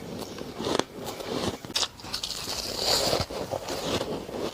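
Biting and chewing soft ice and freezer frost up close: a run of irregular crackling crunches.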